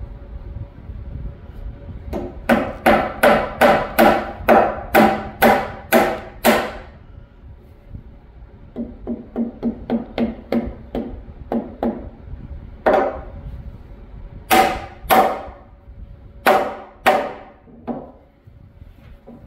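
Hammer striking a reclaimed-wood bench top: a run of about nine hard, ringing blows at roughly two a second, then a quicker run of lighter taps, then half a dozen spaced single blows.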